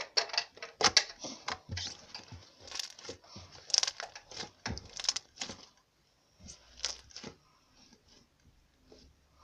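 Red slime squeezed and kneaded by hand on a tabletop: a quick run of sticky crackles and squelching pops. It thins to a few quieter pops about six seconds in.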